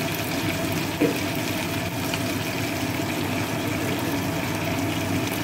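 Ginger-garlic paste and spices frying in hot oil in a kadai, a steady sizzle, with one light knock about a second in.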